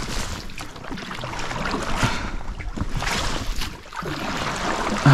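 Oars of a small rowing boat splashing and churning through shallow, weed-choked water, with irregular knocks from the oars and boat, as the stuck boat is rowed hard to get free.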